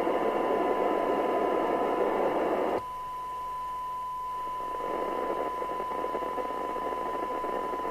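Steady 1 kHz test tone from a signal generator, received by a PNI HP55 CB radio and heard from its audio output over receiver hiss. The hiss drops abruptly about three seconds in and comes back up a couple of seconds later while the tone holds, as the signal is set for a 12 dB receiver sensitivity (SINAD) reading.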